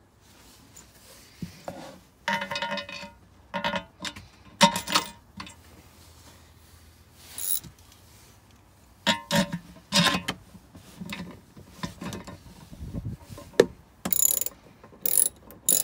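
Metal parts clinking and knocking as carriage bolts and spacers are fitted into a steel mounting bracket, some strikes ringing briefly. Near the end a socket ratchet clicks as a bolt is turned.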